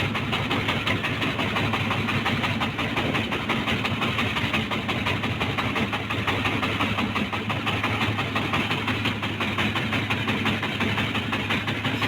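Small fishing boat's engine running steadily at a low, even speed while trolling, with a fast, constant beat.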